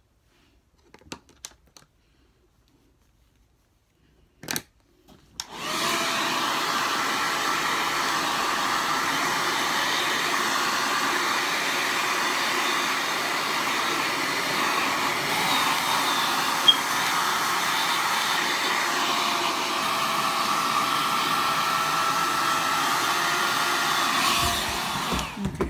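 Handheld hair dryer blowing air onto hair. After a click it starts about five seconds in, runs steadily with a faint hum, and shuts off just before the end.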